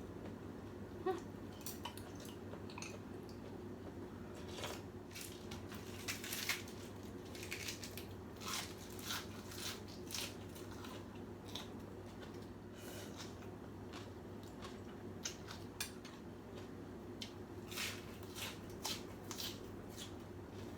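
A person eating pho noodle soup: scattered short chewing and slurping sounds and utensils clicking against the bowl, over a steady low hum.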